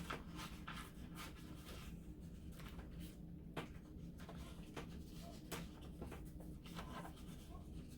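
Faint handling sounds, soft rustles and a few light clicks, over a low steady hum.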